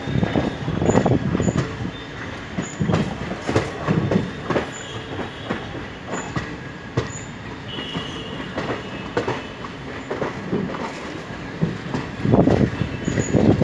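Passenger train coach wheels clattering over rail joints and points as the train pulls slowly out of a station, with irregular knocks and a brief wheel squeal about eight seconds in. The running noise grows louder near the end.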